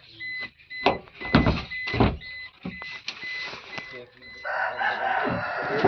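Sharp clicks and knocks from a Maruti Brezza's tailgate lock latch being worked by hand from inside the boot to release the jammed lock. A rooster crows near the end.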